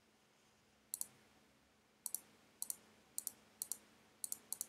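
Computer mouse button clicks, about seven quick press-and-release clicks, most in fast pairs, starting about a second in, as options in a software menu are clicked through. Faint, over quiet room tone.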